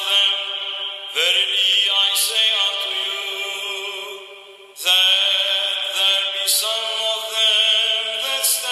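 Orthodox liturgical chant: a sung line held on long notes that step between pitches, with a fresh phrase starting about a second in and another near five seconds in.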